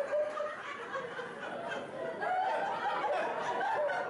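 Several people laughing and chuckling, with overlapping voices.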